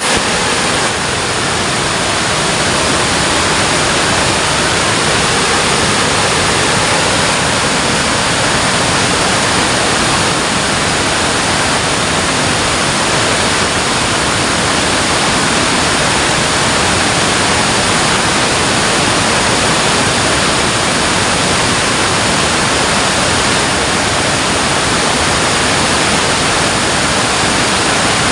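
Water rushing at a dam, a loud, steady, unbroken rushing noise.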